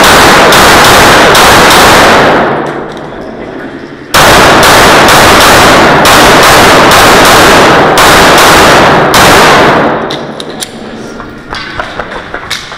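Glock 34 9mm pistol fired in fast strings inside an indoor range, each shot loud and echoing so the shots run together. The firing pauses for about a second and a half starting about two and a half seconds in, resumes, then stops near ten seconds, leaving only scattered light clicks and knocks.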